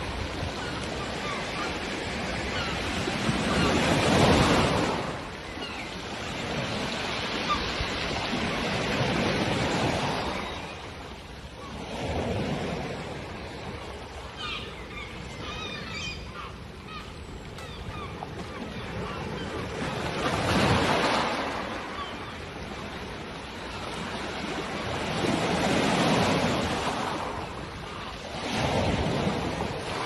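Sea waves breaking on a pebble beach, the surf swelling and washing back in six surges. A few short gull calls come in the middle.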